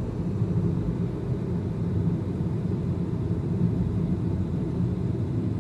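Steady low rumble of a vehicle under way.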